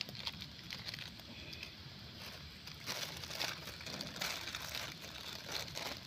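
Open wood fire of twigs and dry grass crackling under a pan of cooking noodles, with many small irregular pops and snaps.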